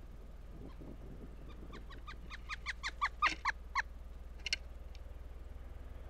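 Pileated woodpecker calling: a rapid series of about a dozen loud, evenly repeated notes, roughly six a second, that swell and then fade over about two seconds. A brief clatter follows about a second later.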